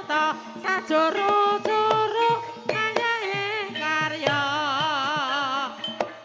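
Banyumasan gamelan music for an ebeg dance: a sung melodic line over struck percussion, with a long wavering held note about two-thirds of the way through.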